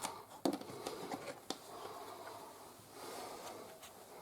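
Faint handling noise of hands working with a camcorder battery charger, with a couple of light clicks.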